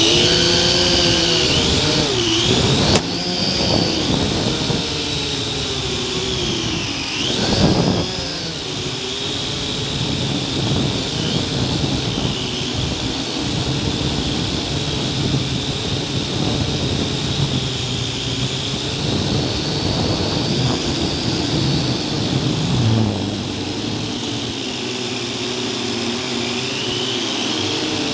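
Quadcopter drone's electric motors and propellers whining in flight, picked up by a camera mounted on the drone itself. The pitch slides up and down with the throttle as it lifts off and flies, with the sharpest swings about 3 and 7 seconds in.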